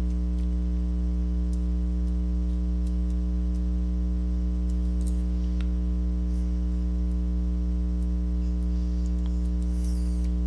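Steady electrical mains hum, a low buzzing drone that does not change, with a few faint small clicks scattered through it.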